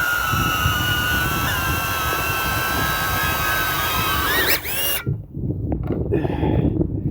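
Quadcopter drone's electric motors and propellers whining steadily, rising briefly in pitch about four and a half seconds in and then cutting off abruptly. After that, rough wind and handling noise.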